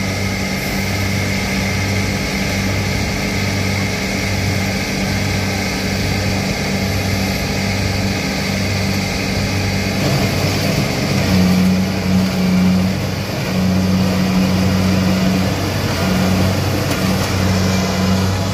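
Combine harvester's engine running hard, a low drone with a regular throb a little over once a second, growing louder for a moment about two-thirds through. The machine is straining to move through deep mud.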